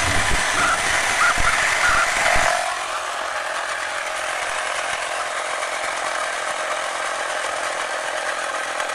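Battery-powered Estrela Lig Car toy car running with its engine-noise effect switched on, a steady mechanical engine-like noise. A few low knocks of the toy being handled come in the first two and a half seconds.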